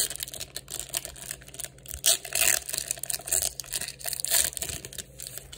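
Foil wrapper of a Topps Chrome trading-card pack being torn open and crinkled by hand, a run of quick crackles and rustles.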